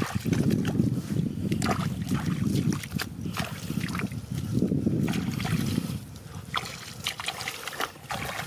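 Shallow muddy water splashing and sloshing under bare feet and grabbing hands, with sharp little splats, in uneven spells that ease off about six seconds in.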